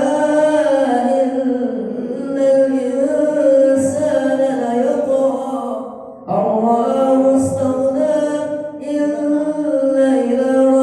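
A single voice reciting the Qur'an in melodic chant (murattal/tilawah), holding long drawn-out notes, with a short breath pause about six seconds in.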